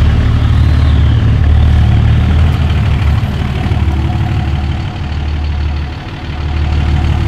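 Diesel pickup truck engine running loud and close, a deep steady rumble with a thin high whine over it for the first second. The rumble eases off about five seconds in, then comes back up.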